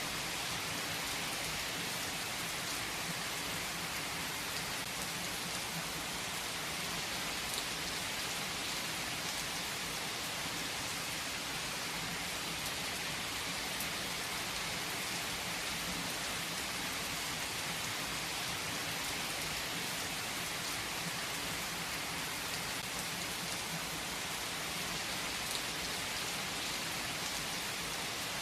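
Steady rain falling, an even hiss with a few separate drops standing out now and then.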